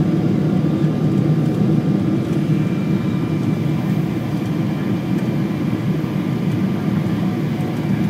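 Airliner in flight: a steady rumble of engines and rushing air, with a faint steady whine above it.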